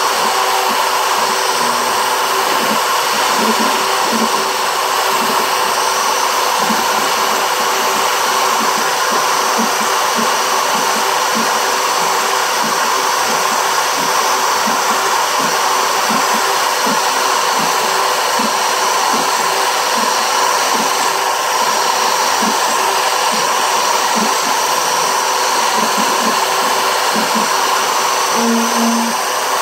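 Router motor on a homebuilt CNC machine running steadily at high speed while its bit cuts letters and a heart shape into a plywood plaque, with short irregular low pulses under the steady whine.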